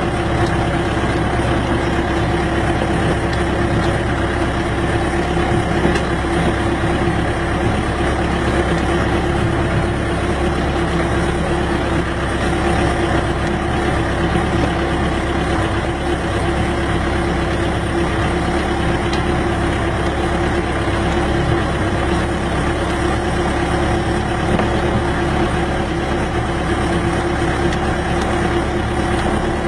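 Vehicle engine running steadily while driving, with an even drone throughout.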